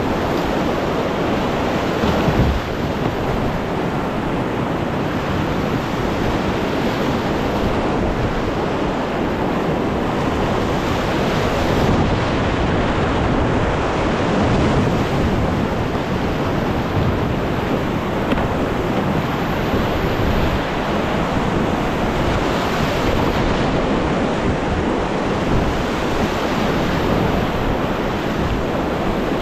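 Whitewater rapid rushing steadily around an open canoe running it, heard close to the water, with some wind buffeting the microphone.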